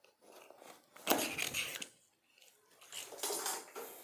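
Cardboard box being cut and pulled open by hand: scraping and rustling of the tape and flaps, in two louder bursts, about a second in and about three seconds in.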